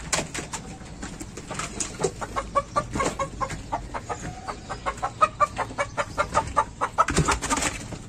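Laying hens clucking in a quick run of short calls, about four a second, with a louder burst of noise near the end.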